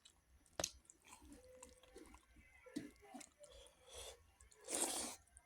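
Close-miked eating of rice with buffalo meat: chewing and wet mouth sounds, with a sharp click about half a second in and a louder, hissing burst of noise near the end.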